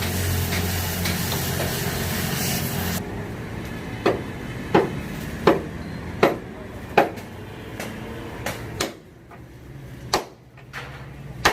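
A steady machine running with a low hum that cuts off suddenly about three seconds in, followed by hammer blows on metal: five evenly spaced strikes, then a few lighter, more irregular ones.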